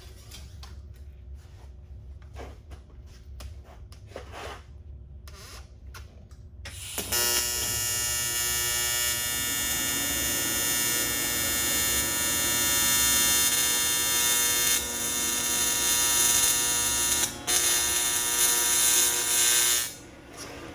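AC TIG welding arc on aluminium, a steady loud buzz that starts about seven seconds in, falters briefly near the end and then cuts off. Before the arc strikes there are faint clicks over a low hum.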